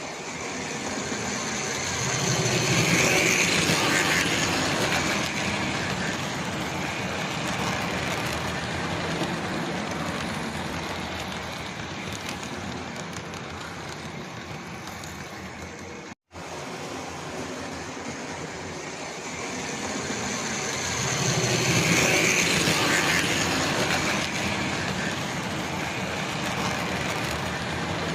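Tri-ang OO-gauge model steam locomotives running on a model railway track: a continuous rumble of the wheels and motor with a faint whine. It swells twice as a train passes close, about three seconds in and again about twenty-one seconds in, and breaks off for a moment about halfway through.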